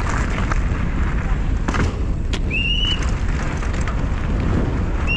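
Mountain bike ridden fast downhill over dirt and then cobblestones: a steady low wind-and-tyre rumble with scattered knocks and rattles from the bike. A short high squeal comes about halfway through and again at the very end.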